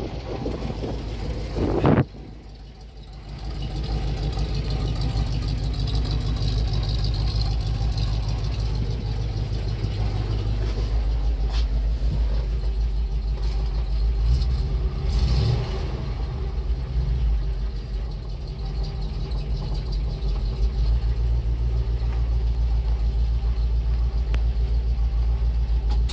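GAZ-53 truck's V8 petrol engine idling steadily, heard from the cab. A short loud knock comes about two seconds in.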